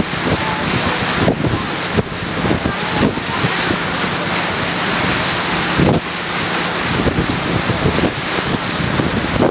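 Wind buffeting the microphone in gusts over the rush of lake water past a moving boat, with a low steady hum of the boat's engine underneath.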